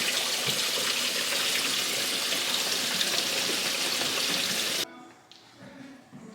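Kitchen tap running steadily, cutting off abruptly about five seconds in.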